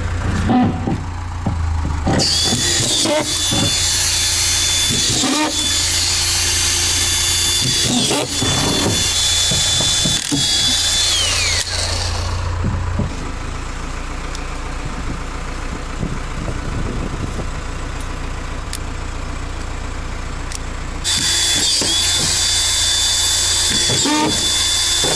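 Makita 18V cordless collated screw gun running with a high-pitched whine, dipping briefly several times as screws are driven into OSB sheathing, then winding down with a falling pitch. After a pause of several seconds it starts again near the end.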